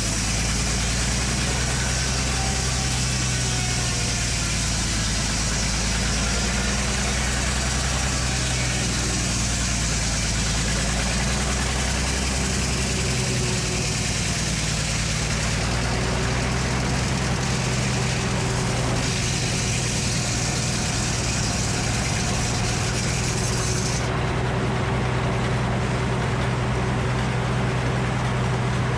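Sawmill engine running steadily with an even hum, with no cut into the log standing out.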